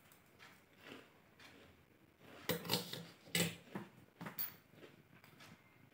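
A person chewing a mouthful of crunchy fried puffed rice (muri): faint, irregular crunches, loudest and closest together a couple of seconds in.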